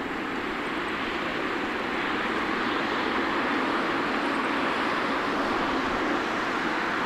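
Boeing 777 freighter's twin GE90 turbofan engines running at taxi power: a steady rushing jet noise that grows slightly louder about two seconds in.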